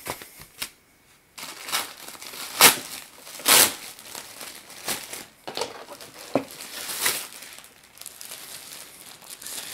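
A thin plastic bag crinkling and rustling in irregular bursts as it is pulled off a round ceiling light fixture; it starts after a brief lull about a second and a half in, and the loudest crackles come a few seconds in.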